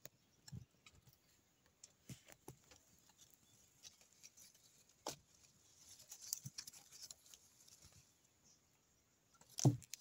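Faint, scattered rustles and small clicks of wet leaves being parted and brushed by hand, busiest about six seconds in, with one louder knock near the end.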